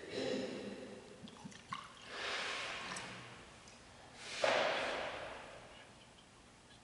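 Soft handling sounds of a chalice being prepared at an altar: a few small clicks and two soft hissing swells, the second louder and fading over about a second.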